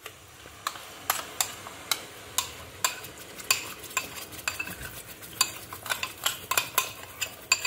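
Thick ground masala paste being scraped out of a bowl into a hot oiled non-stick kadai and stirred, with frequent short taps and scrapes of the spoon over a soft, steady sizzle.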